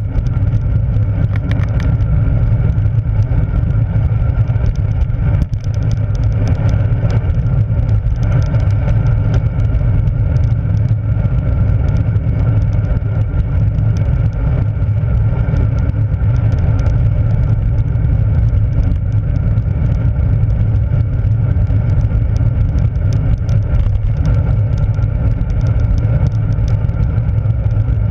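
Wind buffeting and road noise picked up by a handlebar-mounted camera on a moving road bike: a loud, steady low rumble.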